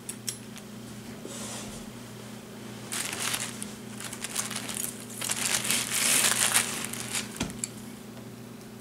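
Packaging crinkling and rustling as it is handled by hand, in two bouts, over a steady low hum; a soft knock near the end.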